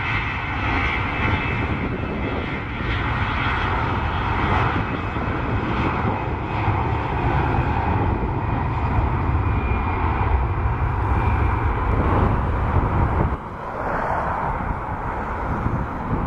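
Airbus A320 twin jet engines at high thrust on the takeoff roll: a loud, steady roar with a deep rumble. About thirteen seconds in, the sound drops suddenly to a quieter, more distant jet roar.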